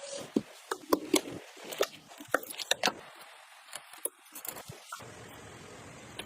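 Irregular sharp clicks and taps of computer parts being handled and fitted during a PC build, about a dozen in all, with a few quick ones close together.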